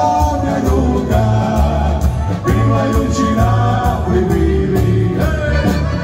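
Live dance band playing a Croatian song with a male singer, over a bass line and a steady drum beat.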